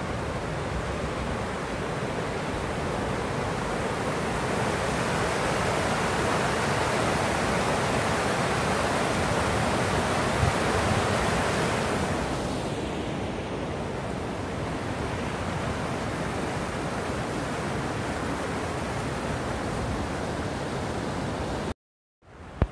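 Steady rush of Lower Yosemite Falls and its creek, fullest about halfway through and duller and softer from about twelve seconds in. It cuts out briefly near the end.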